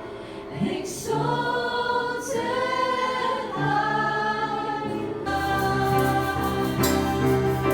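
Worship music: a choir singing long, held notes. About five seconds in, a fuller accompaniment with a steady beat comes in.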